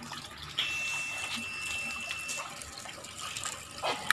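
Water running from a tap and splashing into a full plastic tub, a steady rushing splash. A thin high steady tone sounds for about two seconds starting about half a second in, and there is a short knock near the end.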